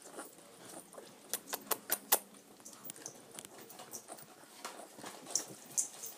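A pug puppy with a cleft palate licking at the metal spout of a hand-held small-animal water bottle, drinking by himself: a quick run of sharp clicks about a second in, and a couple more near the end.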